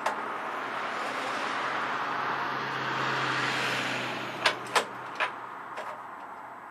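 A steady rush of noise that swells and fades, then several sharp clicks and knocks of parts being handled as the recoil starter housing is fitted back onto a snowblower.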